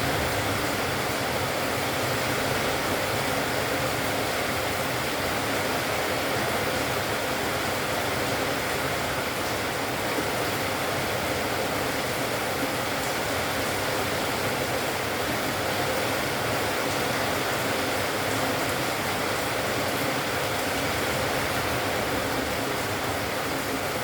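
Steady, even rushing noise like hiss or running water, with no distinct calls standing out.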